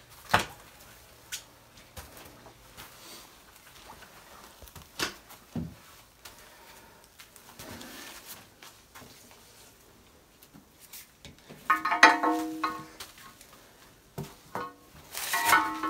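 Scattered knocks and scrapes as a metal machine frame and tools are handled in a dirt pit. About twelve seconds in, a louder metallic clank rings briefly, and another comes near the end.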